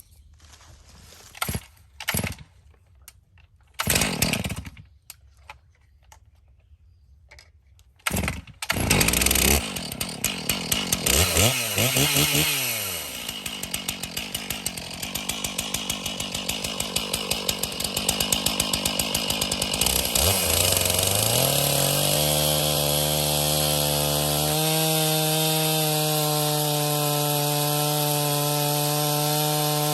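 A few knocks, then a Stihl MS 461 two-stroke chainsaw is started about eight seconds in, catches and runs unevenly at low speed, then is revved up about twenty seconds in and held at steady high speed.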